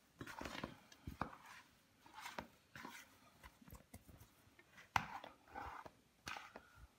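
Faint knocks and scraping of kitchen bowls and sticky bread dough being handled as risen dough is moved into a stand mixer bowl, with a sharper knock about five seconds in.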